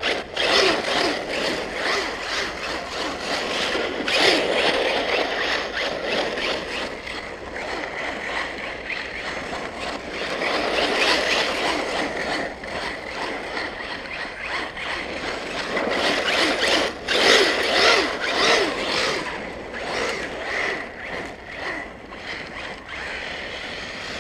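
Arrma Talion electric RC truggy driving hard on dry, stony dirt: motor whine mixed with tyres scrabbling and spitting grit. It swells louder several times as the truck accelerates and turns.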